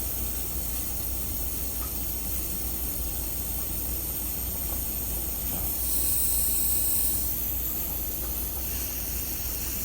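Propane gas hissing steadily from the refill adapter and butane canister as it escapes from a full canister. The hiss swells for about a second around the middle.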